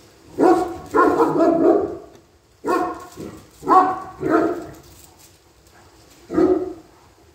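German Shepherd barking repeatedly: about six loud barks with short, uneven gaps between them.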